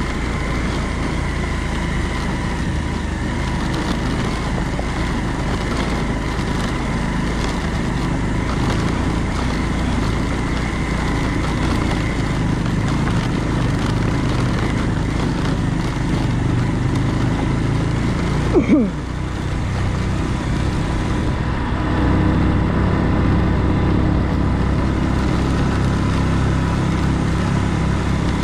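Motorcycle engine running steadily at low speed on a rough gravel dirt road. About two-thirds through there is a sharp jolt with a brief falling glide, after which the engine note is stronger and a little louder.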